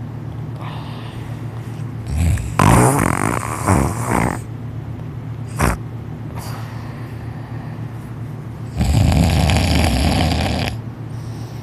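Loud snoring from a sleeper lying on his back: two long snores about six seconds apart, with fainter breaths between them and a short click in between.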